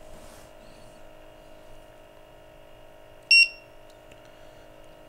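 Trak-It IIIa gas detector giving one short, high electronic beep about three seconds in, as it saves its propane thermal-conductivity (TC) calibration. A faint steady hum runs underneath.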